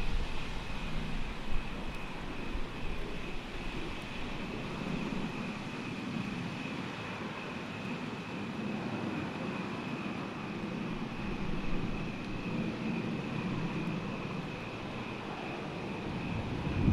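Distant thunder rumbling low and soft, swelling in the middle, with a steady faint high-pitched buzz above it.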